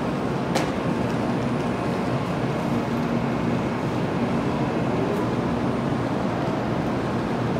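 Steady noise of a Shinkansen train standing at a station platform, with a faint low hum that comes and goes.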